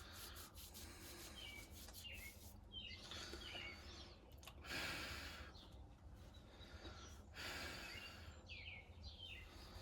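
Faint bird chirps, short falling notes repeated every second or two, over a low steady hum, with a few brief soft hissing sounds.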